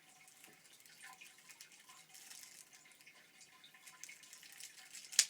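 Faint handling noises of a lighter's packaging being worked open, with small ticks over a low hiss, then a sharp click near the end.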